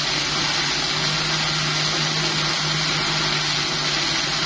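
Electric kitchen blender running steadily, puréeing chilies with shallots and tomatoes into a smooth sauce base.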